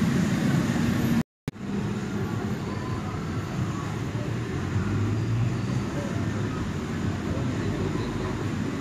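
Steady background rumble of traffic, broken by a short dropout a little over a second in.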